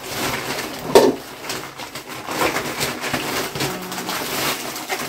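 A large plastic shopping bag rustling and crinkling as hands rummage through it to pull items out, with one louder thump about a second in.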